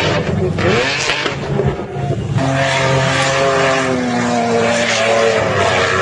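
Off-road 4x4 engine running at high revs during dune driving, a steady drone whose pitch dips and climbs again within the first second, with a rushing hiss over the first two seconds.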